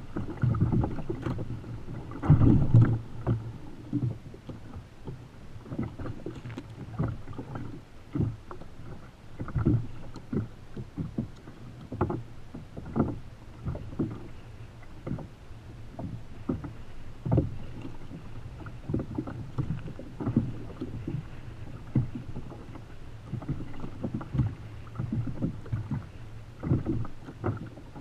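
Choppy sea water slapping against the hull of a Feel Free Lure 13.5 fishing kayak in irregular knocks and splashes.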